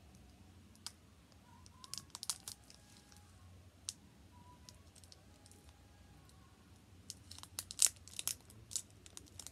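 Scissors snipping through a Pokémon booster pack's crinkly foil wrapper, and the wrapper crackling as it is handled. The sound is a scatter of sharp clicks and crackles, bunched about two seconds in and again near the end.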